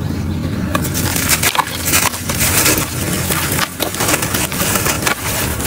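Hands squeezing and crumbling gritty charcoal powder and lumps, giving a dense run of crunching and crackling with many small sharp crackles.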